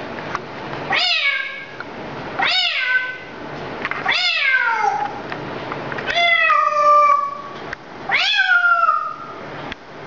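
African grey parrot mimicking a cat's meow five times, each a falling call about a second long, repeated every couple of seconds.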